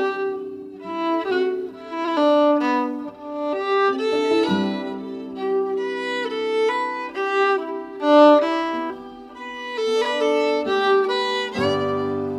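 Instrumental background music: a melody of short notes over held lower notes, with a deeper note coming in near the end.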